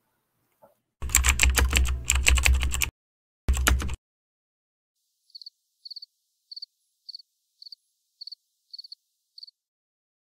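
Computer keyboard typing sound effect for an intro title card: a loud burst of rapid key clatter over a deep rumble for about two seconds, and a short second burst. Then eight single, light keystroke clicks follow, about every half second.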